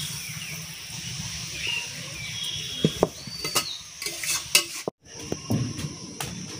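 A long metal spatula scraping and knocking against a metal wok, with several sharp clicks, as the last of the curry is scraped out. The sound cuts off abruptly about five seconds in.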